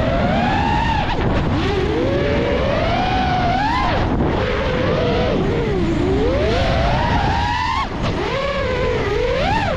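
FPV quadcopter's brushless motors and propellers whining, the pitch rising and falling constantly with the throttle, over heavy wind rush.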